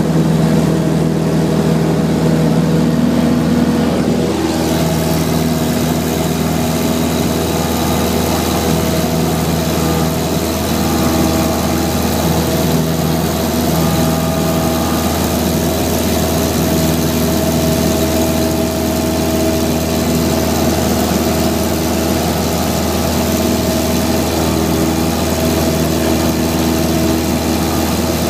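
Cessna 172's piston engine and propeller running steadily, heard inside the cabin in flight.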